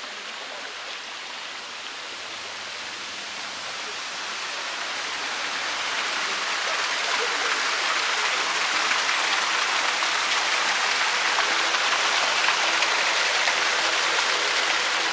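Mountain river water rushing and splashing over granite boulders, a steady rush that grows louder about a third of the way in and then holds.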